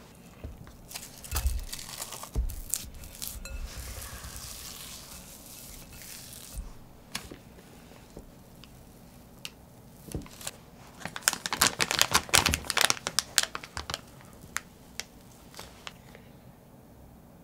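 Plastic crinkling and rustling in two busy stretches, as a clear plastic piping bag is handled and chilled financier batter is scraped into it with a spatula. Scattered clicks and scrapes fall between the stretches.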